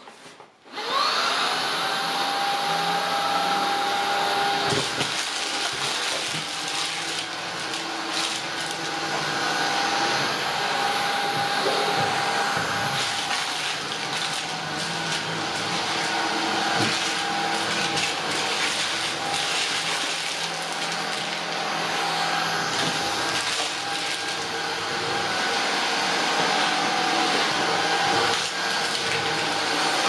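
Shark IZ320EUT cordless stick vacuum switched on about a second in, its motor spinning up with a rising whine and then running steadily on the medium suction setting. Scattered short clicks come from coarse dirt particles being picked up by the floor nozzle on laminate.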